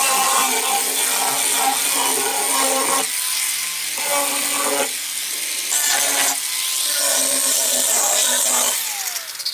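A handheld electric sanding tool with a round pad running against pine boards: a high motor whine over rough sanding noise that eases and picks up as the pad is pressed and moved. It cuts off suddenly at the end.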